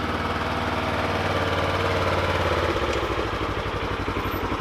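Polaris Ranger XP side-by-side UTV engine running as the machine is driven slowly. Its note drops slightly a little under three seconds in.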